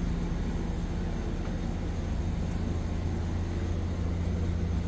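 A steady low hum with a faint even noise over it, unchanging throughout.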